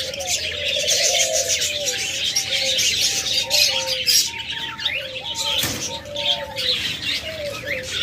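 A room of caged budgerigars chattering and chirping continuously, with lower cooing underneath from doves. A single sharp click comes about six seconds in.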